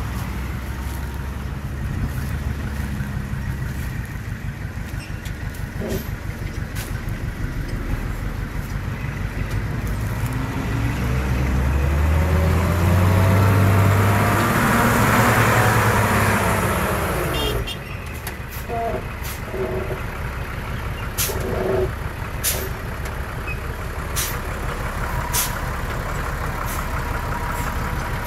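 A heavy diesel engine runs under load. It revs up steadily for several seconds with a loud rushing hiss, then drops back abruptly about two-thirds of the way in. Sharp metallic clanks follow.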